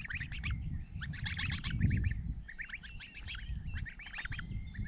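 Month-old goslings peeping: short calls repeated rapidly and continuously. A low rumble peaks around two seconds in.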